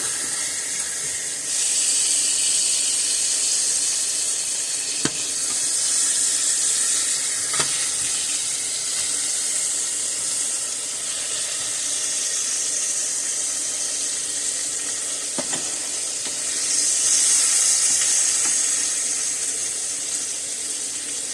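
Steaks frying in butter in a hot pan, a steady sizzle that swells a little over a second in and again near the end. A few light clicks or knocks are heard.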